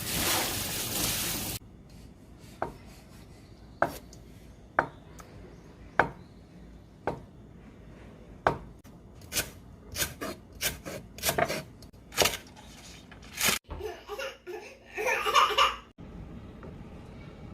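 Kitchen or table clatter: a brief noisy rush at the start, then scattered sharp clicks and knocks of utensils against dishes, coming quicker toward the middle.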